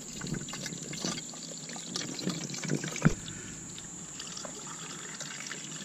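Engine coolant poured from a plastic jug into an empty plastic water bottle, a steady trickling stream, with small plastic clicks and one sharp knock about three seconds in.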